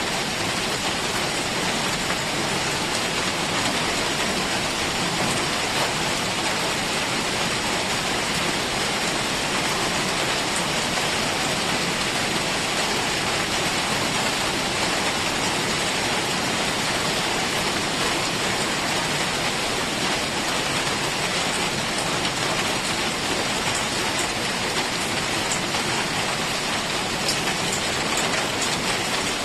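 Heavy rain falling steadily, an even hiss without let-up, with a few faint ticks of drops near the end.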